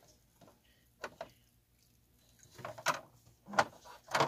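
Hard plastic lid of a JustSmart hydroponic garden's reservoir being handled and set back in place: a few light clicks, then a louder run of clacks and knocks near the end.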